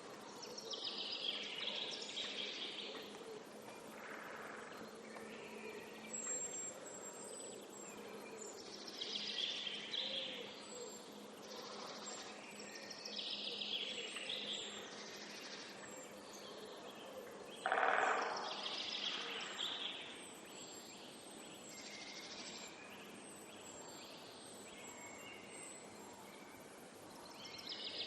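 Wild birds singing and chirping over a steady background hiss, with phrases of song every few seconds and short high chirps between them. A louder, harsher call stands out about eighteen seconds in.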